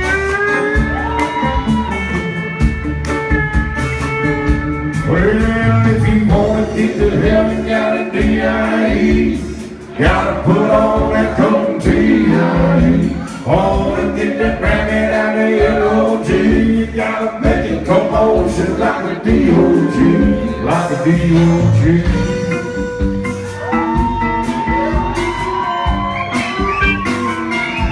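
Live country band playing loud: a male lead vocal over pedal steel guitar, electric and acoustic guitars, bass and a steady drum beat, heard from within the audience.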